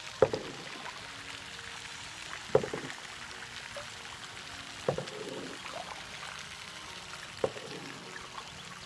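Kayak paddle strokes dipping and splashing in the water, four strokes about two and a half seconds apart, with water trickling between them.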